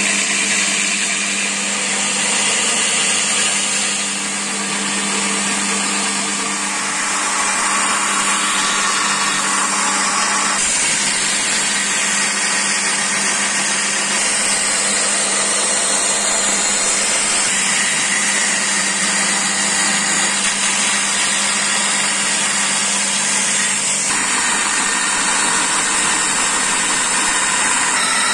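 Belt grinder running steadily with its motor hum, a steel blade cut from an old circular saw being ground against the abrasive belt; the sound shifts abruptly twice.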